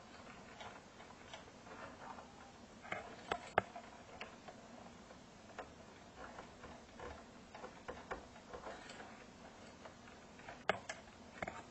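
Faint, irregular clicks and light rattling of insulated wires and crimped spade connectors being handled and tugged inside a metal amplifier chassis, with a few sharper clicks, the loudest about three and a half seconds in and again near the end.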